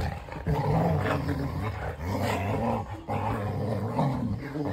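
Two English Springer Spaniels growling at each other as they wrestle in play: long, low rumbling growls in three stretches broken by short pauses.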